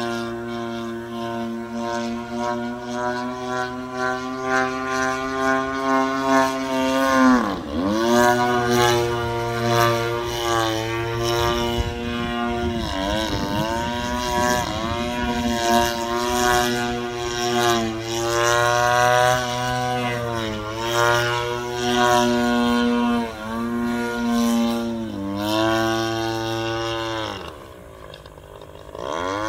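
A GP76 engine on a model aircraft drives a 24x9 Falcon propeller in a steady drone. Its pitch swoops down and back up several times. Near the end it drops low and quieter for about two seconds, then opens up again.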